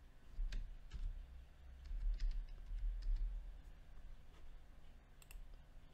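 Computer keyboard keystrokes, a few scattered clicks typing a short word, over a low steady hum.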